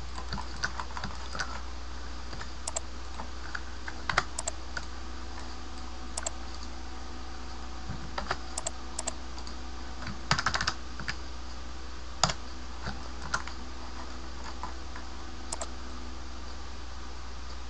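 Computer keyboard keys and mouse buttons clicking as Blender shortcuts are pressed: scattered single clicks, with a quick run of several about ten seconds in, over a steady low hum.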